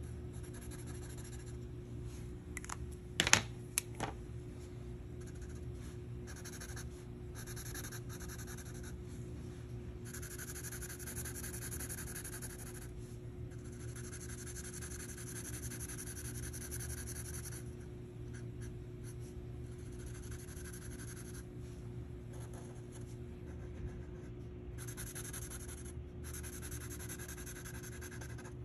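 Sharpie permanent marker tip rubbing across paper while colouring in, in strokes lasting from a moment to several seconds with short pauses between. A couple of sharp clicks come about three to four seconds in.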